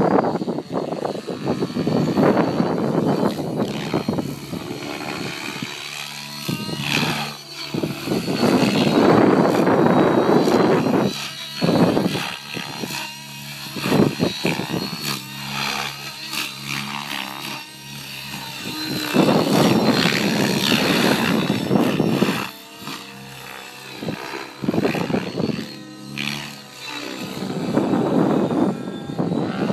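Electric Synergy E5 Stretch RC helicopter with 695 mm main blades flying aerobatics: a motor and rotor whine whose pitch glides up and down, with loud whooshing surges from the main rotor that swell and fade every few seconds as it manoeuvres.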